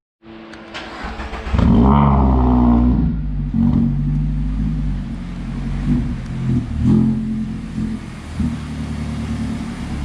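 Mazda Miata ND engine running: revved up about a second and a half in, then settling to a steady run with a few small blips of throttle.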